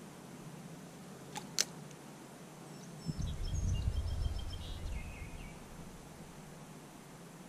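Wind buffeting the microphone in a low rumbling gust for about two seconds, starting about three seconds in, while a songbird sings a short run of high notes that step down in pitch. There are two sharp clicks a little over a second in.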